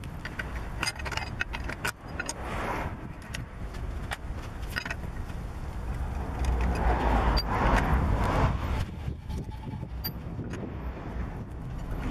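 Wrench clicking and clinking on the wheel bolts of a BMW E46 as they are unscrewed: a run of short metallic clicks and rattles. A louder rushing noise swells and fades in the middle.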